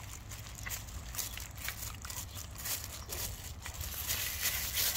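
A dog licking chunky peanut butter off a plastic-wrapped board: quick wet licks and smacks with the plastic crinkling under her tongue, getting busier near the end.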